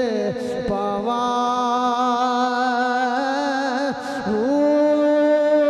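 A man singing a line of Punjabi verse in long drawn-out notes with slow ornamental bends; about four seconds in his voice steps up to a higher held note.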